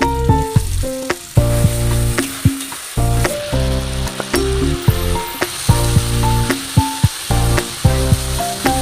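Food sizzling in hot oil in a pan while being stirred, with background music of pitched notes over a steady low beat.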